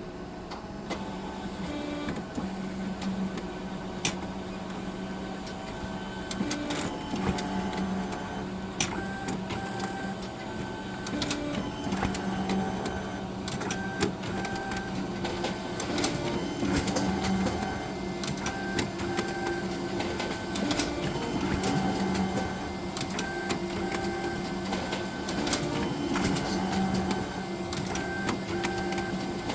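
All-in-one printer working through a scan-and-print job: motor hum that starts and stops in stretches, with frequent sharp clicks and ticks. This is the noise the owner suspects may be abnormal.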